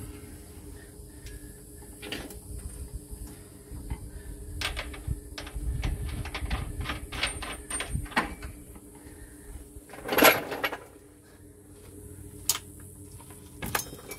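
Hand tools and hardware clicking and clinking against the upper shock-absorber mount on a motorhome frame: a string of irregular sharp clicks, then one louder metallic clatter lasting about half a second past the middle, and a couple of single clicks near the end, over a low steady hum.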